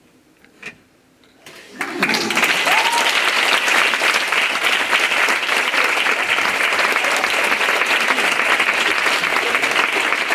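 Audience applauding, breaking out about two seconds in and going on steadily and loud.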